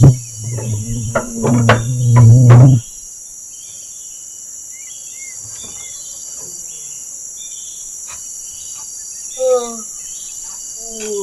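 Steady high-pitched chorus of crickets and other insects. A loud, low, rough drone fills the first three seconds, and a short run of falling calls sounds near the end.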